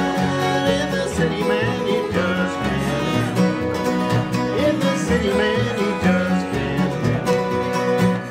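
Bluegrass-style acoustic string music with no singing: plucked strings such as banjo and guitar over a steady, rhythmic bass line.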